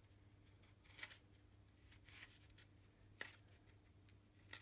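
Faint, short scratches of a scalpel blade drawn through extruded foam, about four strokes, deepening the joint lines of a carved model stone wall. A low steady hum lies under them.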